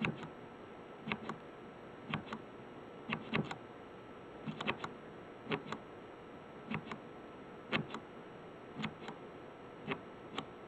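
The push-button control rod of a Gorilla Diving Products PO2 monitor is pressed about once a second. Each press gives a sharp double click. Each press steps the sensor reading up by one count during calibration, toward the 1.00 calibration value in pure oxygen.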